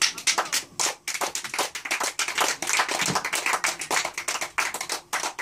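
A small audience clapping hands in applause, a quick irregular patter of claps that thins out near the end.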